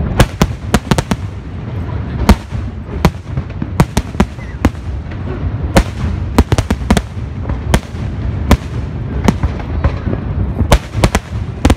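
Aerial fireworks shells bursting in quick succession: an irregular string of sharp bangs, roughly two a second, over a steady low rumble.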